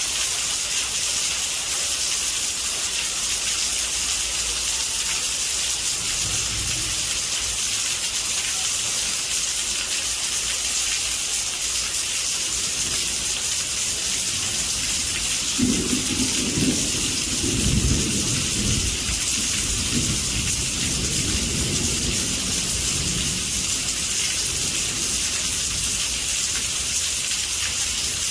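Heavy rain on a roof, a steady dense hiss. A little past halfway, a long rumble of thunder swells twice and fades out over several seconds.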